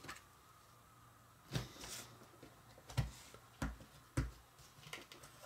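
Jigsaw puzzle pieces being handled and set down on a tabletop: a handful of faint, irregularly spaced clicks and taps with light rustling between them.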